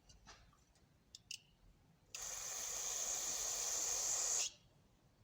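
A few light clicks, then a steady spray hiss for about two and a half seconds that starts and cuts off sharply.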